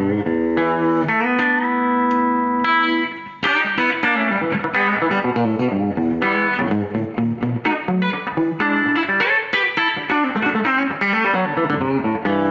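Electric guitar on its bridge pickup: a Harley Benton T-style fitted with a B-bender, played clean through a Fender Twin Tone Master amp with a slight reverb and no other effects. Picked notes, with notes held ringing for about two seconds near the start, then a quicker run of single notes.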